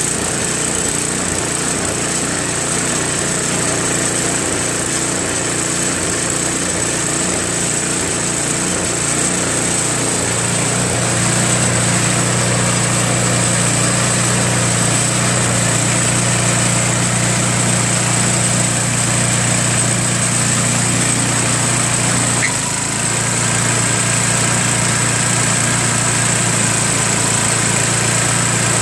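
Tecumseh 5 hp single-cylinder four-stroke engine on a Craftsman 524 two-stage snowblower running steadily. Its note strengthens about ten seconds in and changes again a little after twenty seconds. This is the engine sold as low-compression, now running pretty well after a quick carburetor clean and fresh oil.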